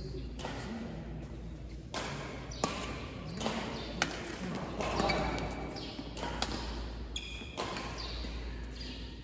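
Badminton rally on an indoor court: several sharp racket strikes on the shuttlecock, with sneaker squeaks on the court floor near the end, echoing in a large hall.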